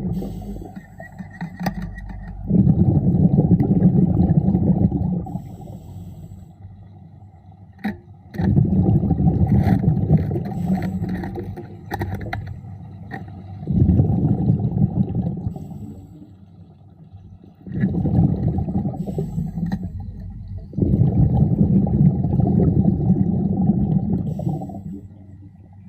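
Underwater rumble of a diver's exhaled bubbles, coming in bursts of two to four seconds about every four to five seconds in time with the breathing, with faint small clicks between.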